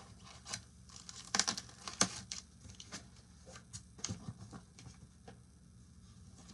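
Cardboard packaging of a large statue box being torn and handled: scattered short rasps and knocks, loudest about a second and a half and two seconds in.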